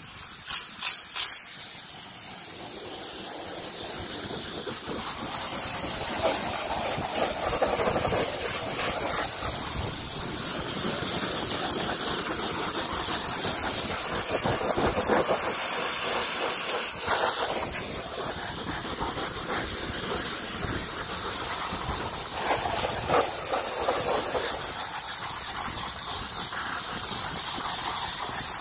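Water jet of a Karcher K2 electric pressure washer, at about 1000 PSI, hissing steadily as it sprays into a truck's engine bay. It opens with a few brief bursts in the first second or so, and its tone shifts as the jet moves across the engine parts.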